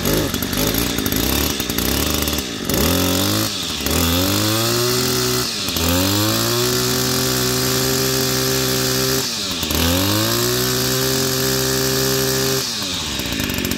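Two-stroke brush cutter engine (Kioritz) revving hard about four times, each time dipping briefly and climbing steeply back to a high held speed, then dropping to idle near the end. It is running lean (short of fuel), and the carburettor's middle needle needs opening about half a turn.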